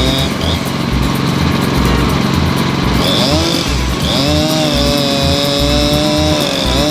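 Portable sawmill running and cutting a cedar log, a loud engine-driven saw with a high steady whine that breaks off briefly about three seconds in and returns.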